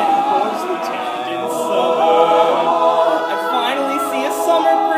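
Male a cappella group singing in several-part harmony, the voices holding sustained chords that shift from one to the next.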